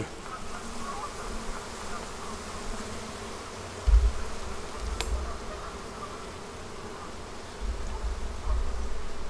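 Honeybee colony buzzing steadily from an open hive box full of bees. A few low thumps come about 4 seconds in and again near the end, with one sharp click about 5 seconds in.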